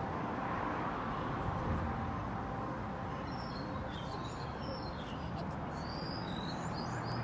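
Birds chirping: a string of short, high, quickly falling calls starting about three seconds in, over a steady low outdoor background murmur.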